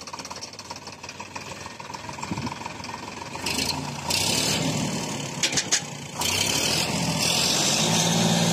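Sonalika tractor's diesel engine running while its tipping trailer's bed is lowered. The engine grows louder from about three seconds in, with two sharp clicks midway, then runs steadily and loudly near the end.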